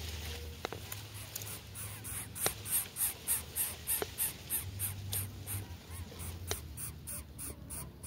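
Greater coucal chicks begging in the nest: a rapid run of short hissing, rasping calls, about three a second, starting about two seconds in.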